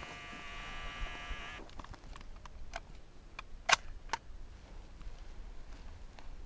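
Camcorder zoom motor whining steadily for about the first second and a half, then three short sharp clicks, the loudest a little before halfway.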